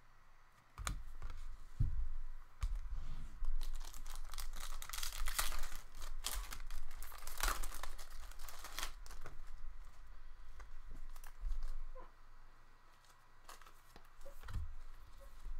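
Foil trading-card pack wrapper being torn open and crinkled, loudest in the middle, with a few sharp clicks and taps.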